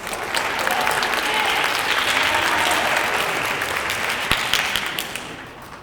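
Audience applauding, swelling quickly and then dying away near the end.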